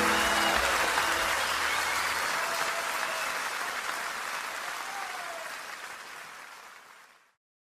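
Audience applauding, with the last notes of music dying away in the first two seconds. The applause fades out gradually and stops abruptly near the end.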